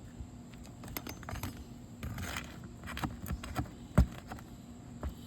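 Metal roof snake (shingle remover) prying under roof shingles to pull nails. Scattered metallic clicks and scrapes, with a sharp knock about four seconds in.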